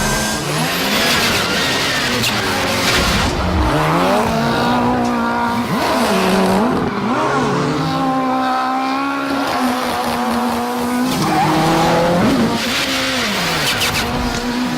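Ken Block's Ford Fiesta rally car engine being driven hard. Its pitch climbs and drops over and over as it revs up, lifts off and changes gear, over a steady rush of tyre and road noise.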